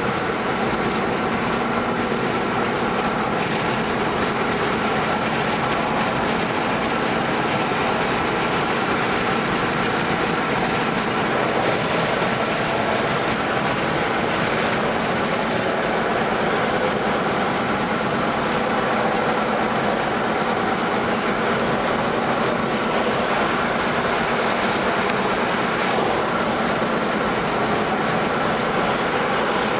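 Steady driving noise of a moving car: tyre and road rumble with a low engine drone, unchanging throughout.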